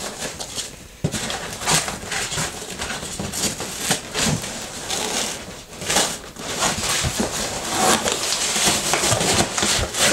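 Foam packing peanuts rustling as hands dig and stir through a cardboard box full of them, an irregular run of crackles and light knocks.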